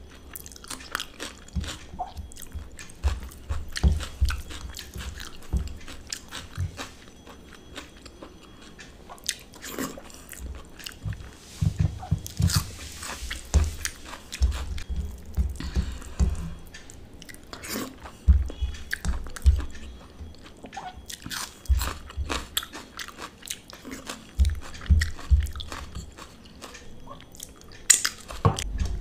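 Close-miked eating sounds: chewing and biting mouthfuls of rice and mashed vorta eaten by hand, full of short wet clicks, with fingers squishing and mixing the food on the plate between mouthfuls.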